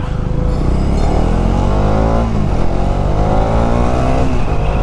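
Bajaj Dominar 400's single-cylinder engine accelerating hard through the gears. Its pitch climbs steadily, drops at an upshift about two seconds in and again near the end, then starts climbing again.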